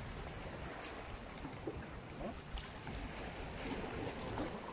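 Sea water washing against the rocks of a breakwater: a steady rush of surf.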